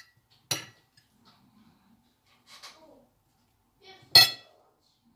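A metal spoon clinking against a ceramic dish twice, about half a second in and more loudly near the end, each strike briefly ringing, with soft handling noise in between as samosa filling is scooped.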